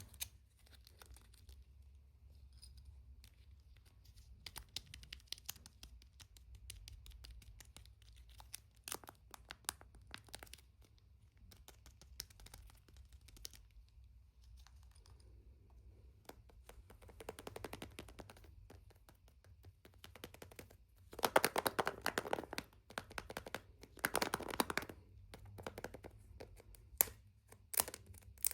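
Hands unwrapping and handling a surprise egg's packaging: scattered small clicks and taps with crinkling and tearing, the loudest rustling bursts coming about three-quarters of the way through.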